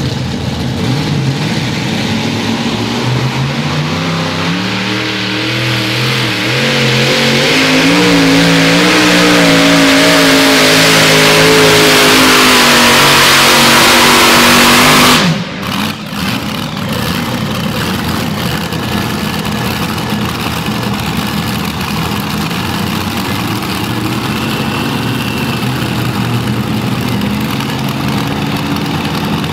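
Multi-engine modified pulling tractor with supercharged engines going to full throttle on a pull. The engines climb in pitch for several seconds and hold at full power, then cut off abruptly about halfway through as the pull ends. A lower, steady idle follows.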